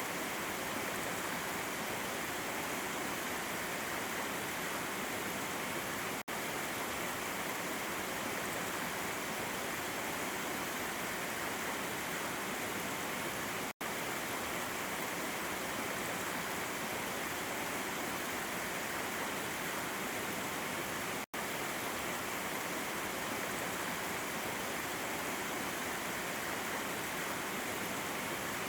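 Water flowing over rocks at a waterfall: a steady, even rushing. The sound cuts out for an instant three times, at regular intervals.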